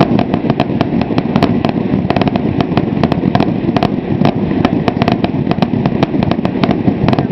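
Aerial fireworks going off in a dense, continuous barrage: rapid, overlapping bangs and crackles several times a second over a constant rumble.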